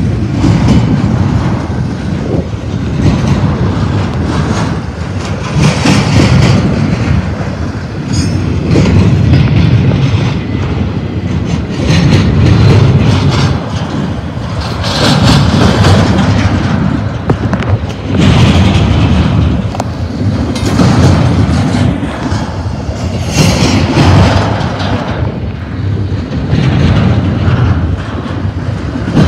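Double-stack intermodal freight train's well cars rolling past close by: a loud steady rumble and clatter of steel wheels on the rail. It swells about every three seconds as each set of wheel trucks goes by.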